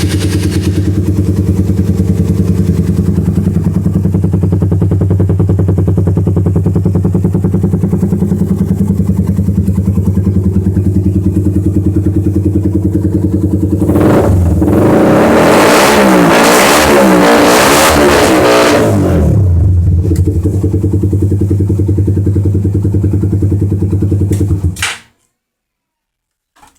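Motorcycle running through a Daeng Stage 2 aftermarket exhaust, idling steadily, then revved up and down several times for about five seconds starting around the middle, then settling back to idle before the sound cuts off abruptly near the end.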